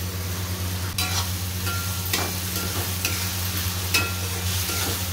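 Tomato puree sizzling in hot oil in an aluminium kadhai while a metal spatula stirs and scrapes the pan, knocking it about once a second with a brief ring, over a steady low hum.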